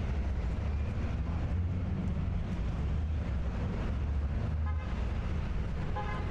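Outdoor city street ambience: a steady low rumble of traffic, with two short pitched sounds near the end.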